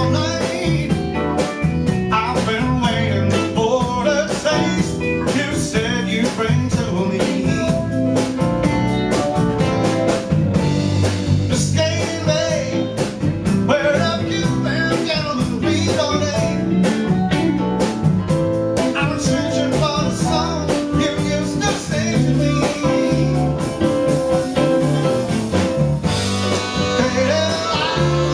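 Live band playing a jazz-rock song: a male lead vocal over keyboard, electric bass, drums and a horn section of saxophones and trumpet.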